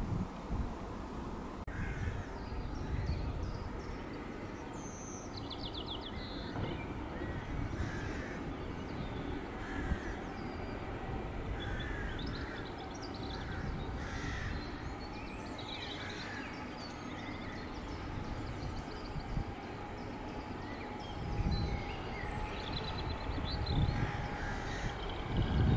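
Birds calling and singing, including crow-like caws, over a low outdoor rumble. Toward the end a low rumble swells as a diesel freight train approaches.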